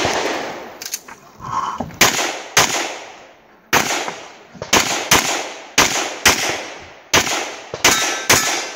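Shot timer beeps once, then a pistol fires about ten quick shots, many in close pairs, with a bang and a short echo on each.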